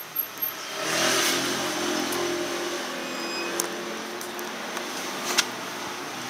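A motor vehicle passing by, its engine noise swelling to a peak about a second in and then slowly fading away. A few sharp clicks sound over it, one louder near the end.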